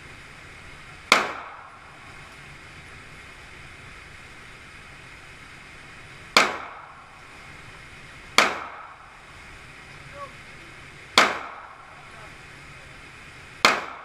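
9mm Glock pistol fired five times at an unhurried, uneven pace, each shot a sharp crack with a short ringing tail.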